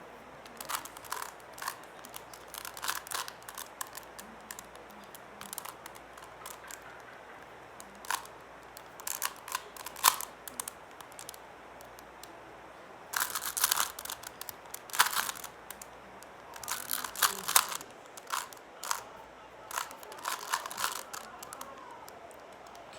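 3x3 Rubik's cube being turned by hand: quick runs of plastic clicks and clacks as the layers rotate, in bursts with short pauses between.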